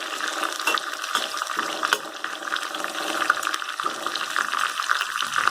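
Fresh, washed herb leaves (Indian borage, sweet basil, tulsi and a betel leaf) frying in coconut oil in a kadai: a steady sizzle with small crackles, the water on the leaves making the oil splutter.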